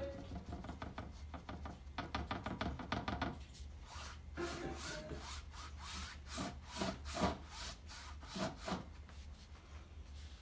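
Paint being worked onto a stretched canvas, strokes scraping across the canvas surface: quick scrubbing strokes for the first few seconds, then a string of separate, sharper strokes.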